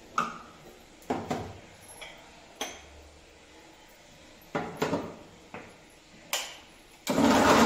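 Spoon and steel containers clinking and knocking on the counter several times, then about seven seconds in an electric mixer grinder starts running loudly and steadily.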